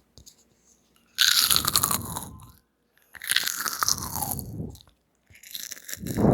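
Close-up crunchy eating: three long bouts of loud crunching bites and chewing, with short pauses between them.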